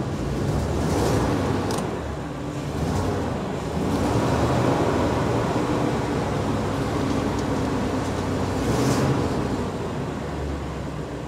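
Ford delivery truck's engine running, heard from the driver's seat, given a few light revs above idle.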